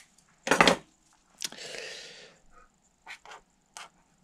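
A sharp knock of an object set down on the workbench about half a second in, then a short rustle, and a few light scratches of a felt-tip pen writing figures on a paper notepad.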